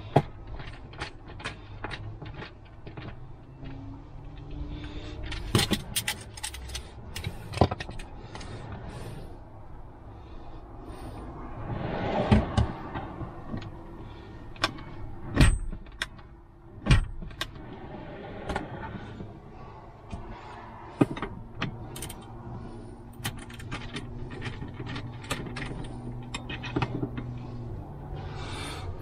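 Hand screwdriver and drawer hardware being worked on a wooden drawer: scattered small clicks and knocks, with several louder knocks.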